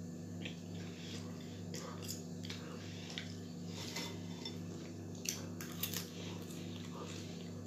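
A person eating french fries with a fork from a bowl: chewing and scattered light clicks of the fork against the bowl, over a steady low hum.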